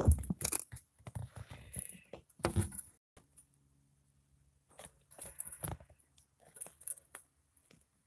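Handling noise from a phone held up to a window pane: scattered small clicks, taps and rubs, with a faint steady low hum in the second half.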